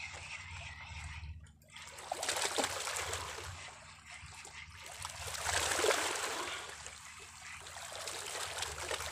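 Small sea waves washing and trickling over shoreline rocks, the wash swelling and fading as each wave comes in.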